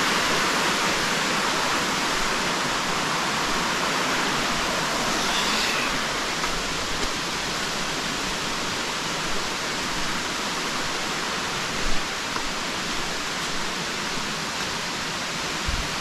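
Waterfall: a steady rush of falling water, easing slightly after about six seconds. A brief low thump comes near the end.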